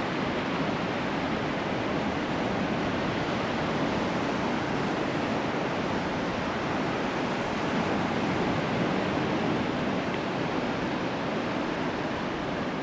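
Gulf surf making a steady rush of noise, with no distinct breaks or events.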